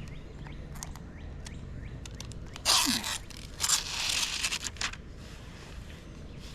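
Scraping and crunching handling noise, in two loud bursts about three and four seconds in, over a steady low background.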